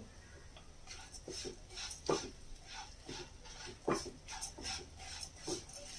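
Spatula scraping and stirring roasted urad dal and spices in a non-stick pan over low heat, a run of irregular short scrapes with light sizzling from the oil; two louder scrapes about two and four seconds in.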